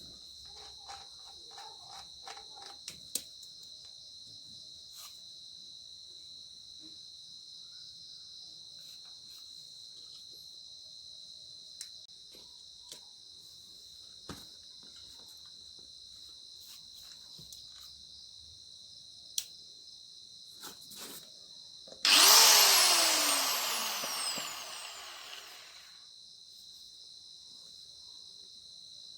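Crickets chirping steadily, with scattered small clicks and knocks. Late on, an Aegon AG100PA angle grinder is switched on with a sudden burst, then winds down with a falling whine that fades out over about three seconds.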